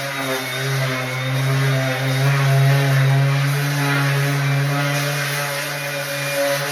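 DeWalt cordless sander running steadily with coarse-grit paper against rough concrete patching: a constant motor hum with a gritty grinding hiss over it.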